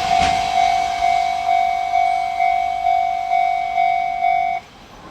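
Japanese level-crossing warning bell ringing, about two strikes a second, each strike fading before the next. The freight train has just cleared the crossing, and the bell stops abruptly about four and a half seconds in.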